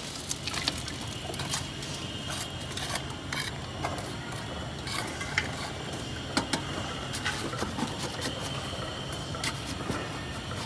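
Mason's trowel scraping and tapping on cement and the steel rods of concrete footing moulds: irregular short clicks and scrapes over a steady hiss.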